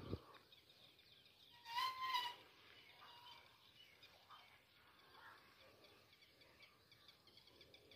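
Quiet outdoor background with faint scattered bird chirps. About two seconds in there is a single short, clearly pitched animal call, rising and falling slightly.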